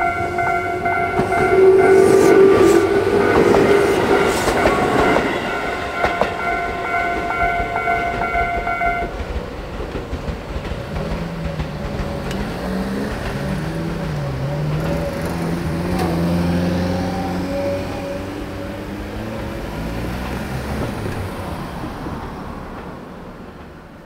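Tobu-type electronic level-crossing warning bell ringing in steady pulses, loudest early on while an 8000 series train clatters over the rail joints. The bell cuts off about nine seconds in, and the engines of waiting road vehicles then rise and fall as they pull away across the tracks.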